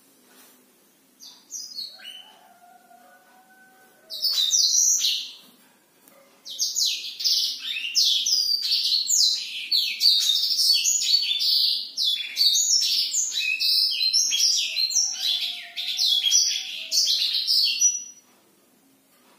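Caged black-throated canary (blackthroat) singing. It gives two short phrases, then a long unbroken song of rapid high notes that lasts about twelve seconds and stops shortly before the end.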